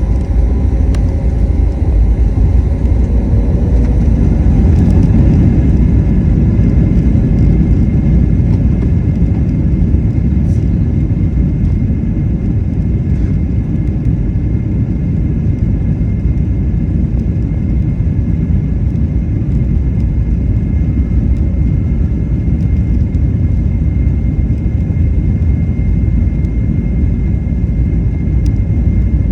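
Boeing 737 jet engines running during takeoff, a loud steady low rumble with a faint steady whine above it.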